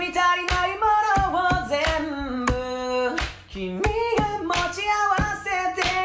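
Singing with a hand-drum accompaniment: hands slapping an upturned plastic laundry basket played as a makeshift drum, keeping a steady beat under the melody. The singing drops out briefly a little past the middle.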